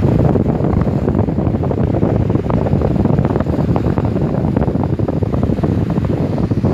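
Loud, steady wind buffeting the microphone, over sea surf washing on a rocky shore.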